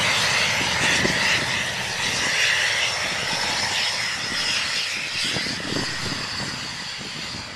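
Hawker Hunter jet's turbojet engine running loud on the runway: a steady roar with a high whine on top that sinks slightly in pitch and slowly fades as the jet moves away.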